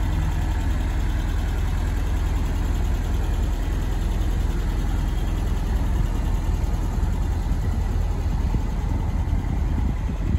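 Nissan Vanette truck's engine idling steadily.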